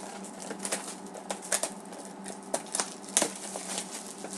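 Trading card packs and cards being handled and opened: scattered light crinkles and clicks of foil wrappers and card stock, over a faint steady hum.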